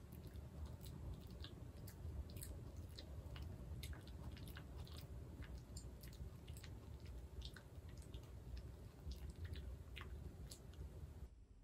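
A dog chewing with wet smacking noises: faint, irregular clicks of its mouth opening and closing, in quick succession.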